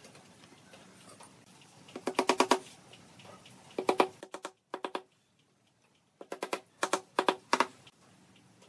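Wooden mallet tapping steel nails partway into pine boards, in several quick runs of sharp taps.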